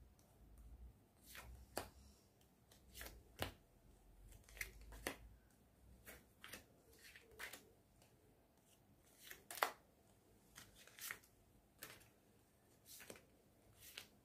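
Oracle cards being picked out of a fanned spread and laid down one at a time: a string of short, irregular card flicks and taps, the sharpest just under ten seconds in.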